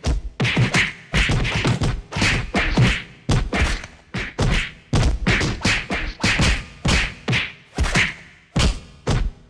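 Fight sound effects: a fast series of punch and body-hit thuds and whacks, several a second, coming in flurries with brief pauses between them.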